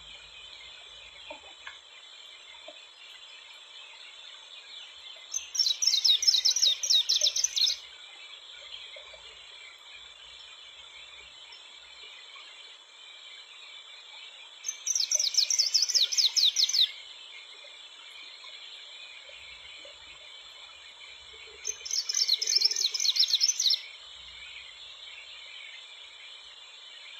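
A small songbird singing three times, each phrase a rapid run of high falling notes lasting about two seconds, over a steady high-pitched background of insects or distant birds.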